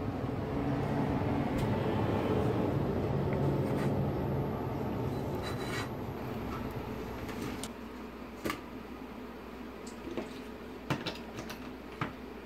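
Hands handling an Audi TT instrument-cluster circuit board on a desk, with rubbing noise over a steady hum. About two-thirds of the way in the hum drops, and five or six short, sharp clicks and taps follow as the board's wiring connectors are plugged in for testing.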